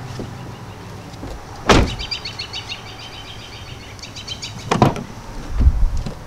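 2018 Nissan Kicks doors being worked by hand: a loud door shut about two seconds in, a fast run of high ticks, then the rear door's latch clicking open near the end and a low thump as the door swings out.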